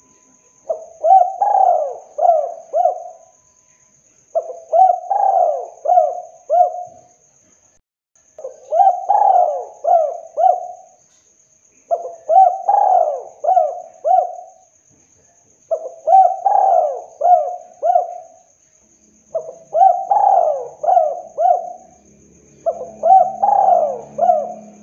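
Spotted dove cooing its 'kuk 2' song: seven phrases, one about every three and a half seconds, each a quick run of four or five coos.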